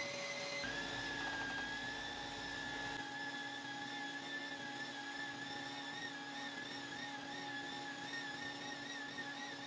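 Handheld electric sander running on a cured epoxy-resin tabletop, a steady motor whine. Its pitch drops a little about a second in and wavers up and down in the last few seconds.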